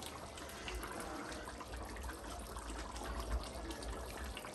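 Pot of brown stew pork simmering on the stove, a soft steady bubbling of the gravy.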